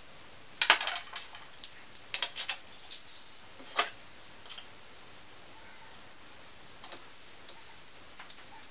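Light clicks and knocks of small model parts and hand tools being put down and picked up on a wooden desk, the loudest about a second in and a cluster around two to four seconds, then a few faint taps.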